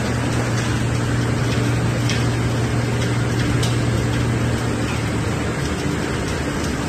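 Plastic film recycling machinery running steadily: a constant low motor hum under an even mechanical noise, with faint scattered ticks.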